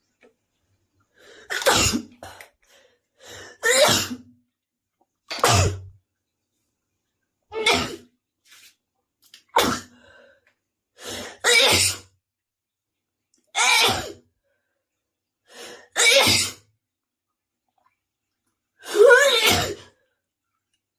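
A young woman sneezing over and over: about nine sharp sneezes, roughly two seconds apart, some with a short breath in just before.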